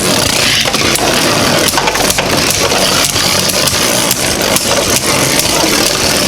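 Two Beyblade Burst spinning tops fitted with 3D-printed metal parts, spinning and repeatedly colliding in a stadium: a dense, continuous rattle of quick clicks and scraping.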